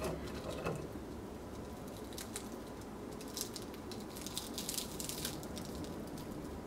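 Crisp crust of a deep-fried rice vada crackling as fingers break it apart: a few faint crackles about two seconds in, then a denser run of crackles over the next few seconds.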